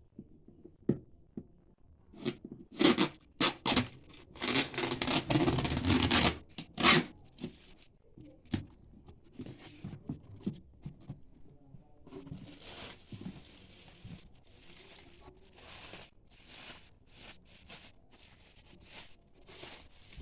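Packaging being torn and crumpled in loud, irregular rips, followed by quieter, steady crinkling and rustling with small clicks.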